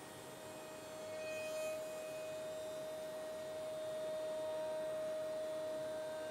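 Masterwood Project 323 CNC machining centre running: a steady whine that swells about a second in.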